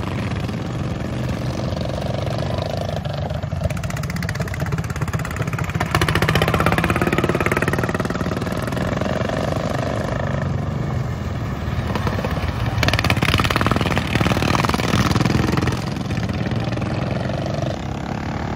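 Several racing lawn mowers' small engines running at speed, swelling louder as mowers pass, about six seconds in and again about thirteen seconds in.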